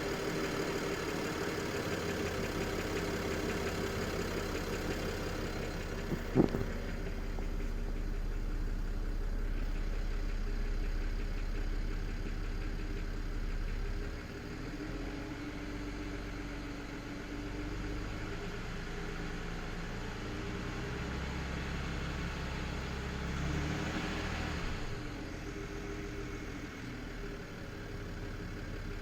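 BMW N53B30 straight-six petrol engine idling on a cold start, with a clatter that the owner says comes in once idle drops to about 700 RPM. He places it roughly at the oil pan or near the exhaust manifold, and has already ruled out the oil pump and rod bearings. A single sharp knock stands out about six seconds in.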